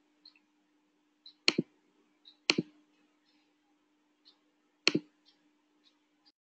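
Computer mouse clicking: three loud, sharp clicks spaced unevenly, with fainter ticks between them, over a faint steady hum that cuts off near the end.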